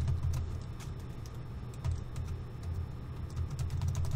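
Keys being typed on a laptop keyboard: a quick, irregular run of key clicks, about three a second, over a low steady hum.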